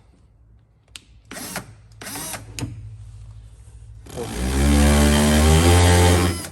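Power drill run in a few short trigger bursts, then a longer run of about two seconds near the end that rises in pitch as it spins up and drops before stopping, while removing factory plastic push rivets from a fender.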